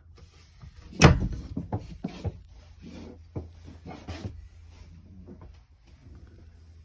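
A closet door in a travel trailer's bedroom is shut with a loud knock about a second in, followed by a few lighter knocks and footsteps on the floor, over a steady low hum.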